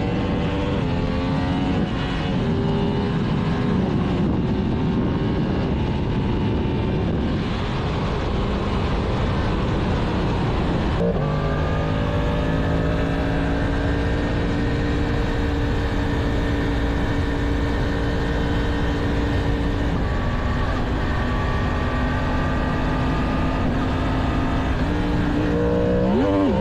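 Stock 2022 Yamaha MT-10's inline-four engine under way, with wind rushing over the microphone. The revs climb and step through the early part, then hold steady at cruise for several seconds with a small drop about 20 seconds in, and rise sharply again near the end.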